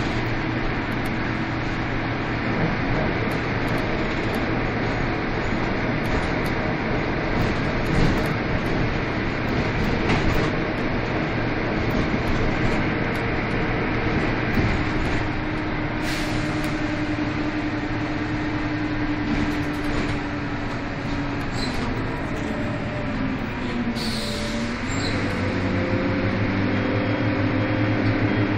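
Karosa B931 city bus under way, heard from inside the passenger cabin: its diesel engine and drivetrain drone over road rumble. The engine note holds steady, then drops in pitch and climbs again a few seconds before the end.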